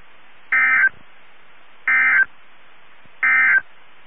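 Three short SAME end-of-message data bursts from a NOAA Weather Radio broadcast, buzzy digital chirps about a second and a half apart over steady radio hiss, marking the end of the emergency alert.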